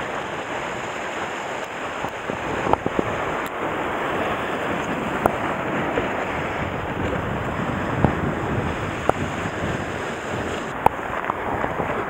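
Sea surf washing against the rocks with wind buffeting the microphone, steady throughout, and a handful of sharp clicks and knocks scattered through it.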